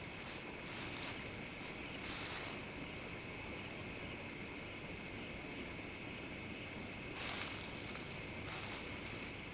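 Slow footsteps crunching through dry leaf litter on a woodland floor, a few separate steps spaced seconds apart, over a steady high-pitched chirring of night insects.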